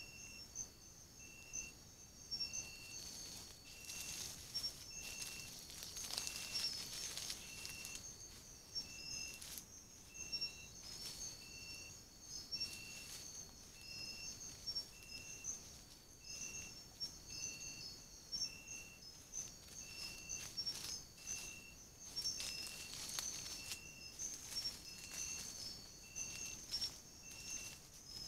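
Night insects calling: a steady high trill with a separate short chirp repeating a little more often than once a second, and occasional soft rustles in dry leaf litter.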